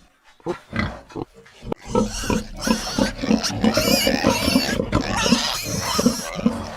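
Animal calls: a run of short, rapid grunts, about three or four a second, with a harsh rasping noise over them from about two seconds in.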